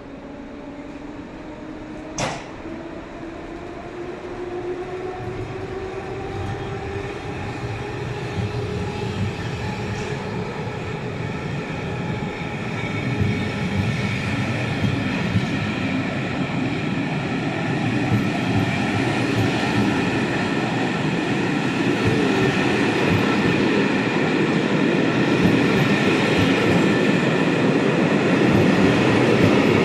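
A passenger train of ČD coaches pulling out and accelerating along the platform. A whine climbs in pitch over the first ten seconds or so, with a single sharp click about two seconds in. The rumble and clatter of the wheels grow steadily louder as the train gathers speed.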